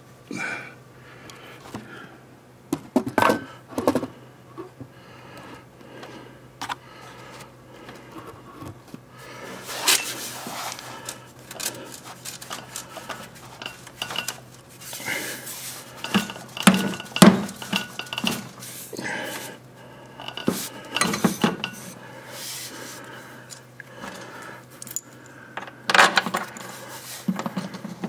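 Irregular metallic clinks and knocks of hand tools and exhaust parts as a Honda GL1500 motorcycle's exhaust is swung back into place and fitted.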